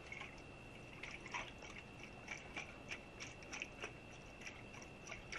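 Faint, irregular small clicks and taps as a Lifefactory glass water bottle with a silicone sleeve and its cap closed is held upside down and handled, over a steady faint high-pitched tone.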